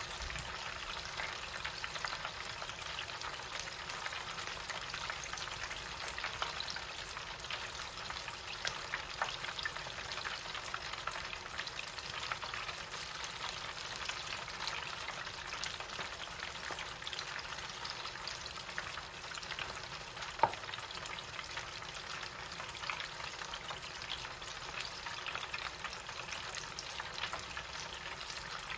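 Chicken pieces deep-frying in hot oil in an electric deep fryer: a steady sizzling crackle dotted with small pops, with one sharper click about two-thirds of the way through.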